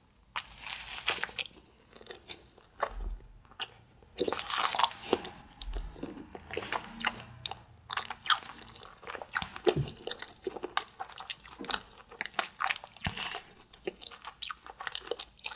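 Close-miked biting and chewing of a fish-shaped wafer ice cream sandwich (a spicy Samanco): crisp crunching of the wafer shell, with a loud bite about a second in and another about four and a half seconds in, then a run of crackling chews.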